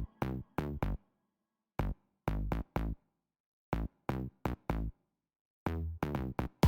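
Electronic background music broken into short, staccato hits with deep bass, separated by abrupt gaps of dead silence, about a dozen hits in all.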